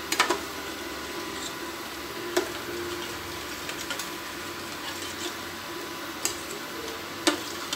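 A slotted steel spoon stirs thin soup in a stainless steel pan: liquid swishing, with a few sharp clinks of the spoon against the pan.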